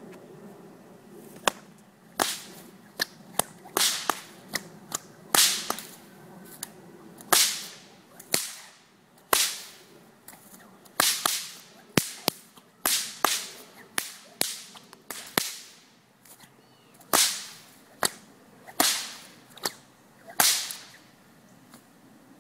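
A pair of bullwhips, one in each hand, cracking again and again. The sharp cracks come roughly once a second, sometimes two in quick succession, starting about a second and a half in and stopping a couple of seconds before the end.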